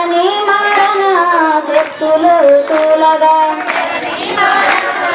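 A woman singing a devotional Navaratri song through a microphone in long, held, gliding notes. Seated women clap along in time, about once a second.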